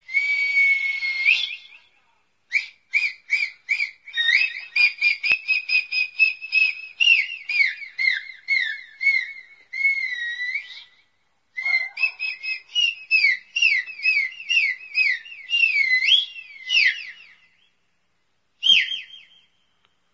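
Recorded high-pitched dog whines and squeals played through a JBL Flip 4 portable Bluetooth speaker. It opens with a held whine, then runs in quick strings of short squeals that rise and fall, a few a second, with brief pauses and one last squeal near the end.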